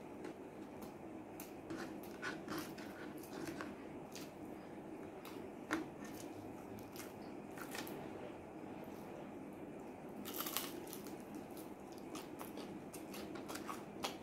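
Close-up eating sounds: chewing and crunching on fried chicken and fries eaten by hand, with scattered short crackles. There is a sharper crunch about six seconds in and a burst of crackling about ten seconds in.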